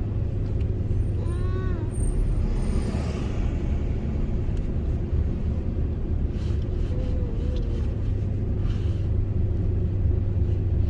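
Steady low rumble of a pickup truck's engine and road noise heard from inside the cab while driving. There is a brief hiss about three seconds in and a few faint short vocal sounds from a baby.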